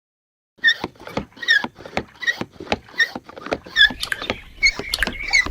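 A cartoon-style sound effect of short squeaky clicks, repeating about two and a half times a second. It starts about half a second in, after a moment of silence.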